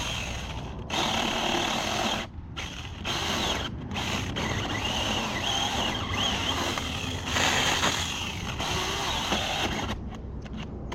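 Saker 4-inch cordless electric mini chainsaw cutting into a thick tree trunk, its motor whining under load. The sound drops out briefly twice and again near the end.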